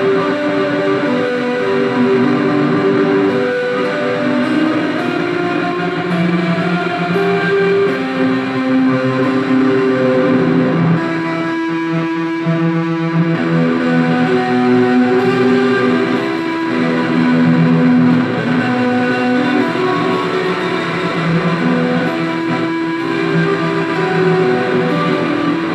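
Electric guitar played through effects pedals into an Orange Crush 35RT amp on its overdrive setting. Held, overlapping notes ring into one another. About halfway through, the sound briefly pulses rapidly.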